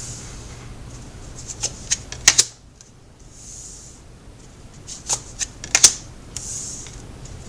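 Tarot cards being handled and laid out on a table: a few soft swishes of cards sliding, and sharp clicks and taps in two clusters, around two seconds in and again around five to six seconds in.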